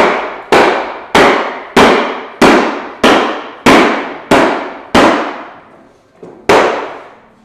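Hammer striking steel in a steady rhythm, about one and a half blows a second, each blow ringing briefly. The blows stop for about a second near the end, then one more comes.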